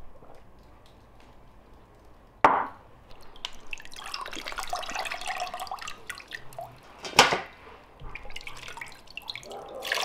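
Water splashing and dripping as a whole raw chicken is lifted out of a plastic tub of water and held dripping over it. Two sharp, louder splashes stand out, about two and a half and about seven seconds in.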